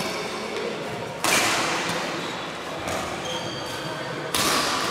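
Badminton rackets striking the shuttlecock during a rally: two sharp hits, about a second in and near the end, each followed by a long echo from the large hall.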